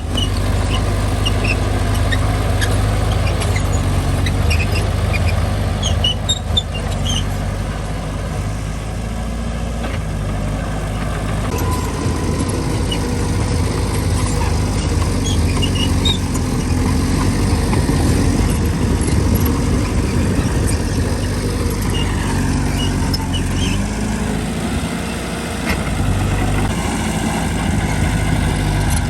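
Diesel engine of a Mitsubishi mini bulldozer working, running steadily, with scattered short squeaks and clicks.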